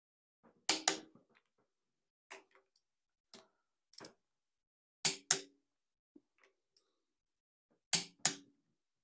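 Click-type torque wrench breaking over on the cylinder head bolts of a Ford 200 cubic inch inline six: three sharp double clicks, each a bolt reaching the set torque, with fainter ticks of the wrench and socket between them.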